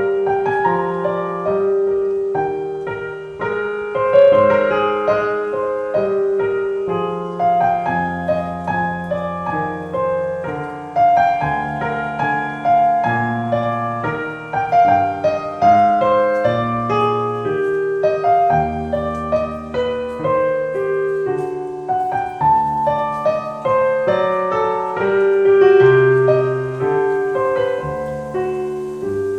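Background piano music: a slow, gentle piece of sustained notes and chords.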